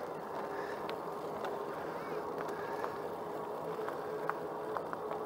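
E-bike electric motor whining at one steady pitch under load on a steep climb in pedal assist 3, over a hiss of tyre and wind noise, with a few faint ticks.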